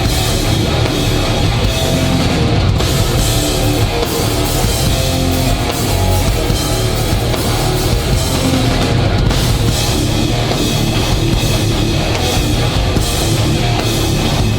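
Live hardcore band playing loud and without pause: distorted electric guitars, bass and a pounding drum kit in an instrumental passage with no vocals.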